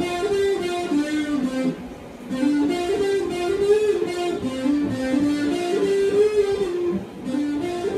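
Electric guitar playing a melodic line of held notes that step up and down, with short pauses about two seconds in and again near seven seconds.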